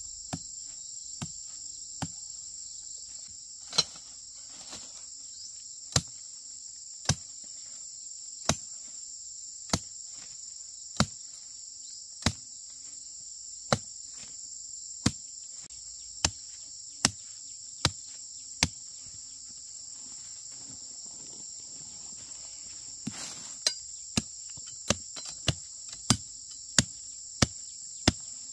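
Sharp, regular blows of a tool striking something, about one every second and a quarter, coming faster near the end. Under them runs a steady high-pitched chorus of insects.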